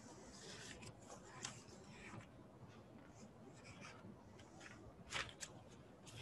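Near silence with faint scratching and rustling, and a few light clicks, the clearest about a second and a half in and about five seconds in.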